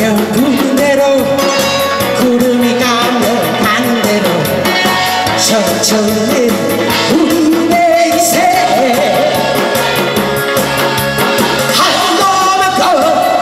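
A woman singing a Korean trot song into a microphone over accompaniment with a steady beat.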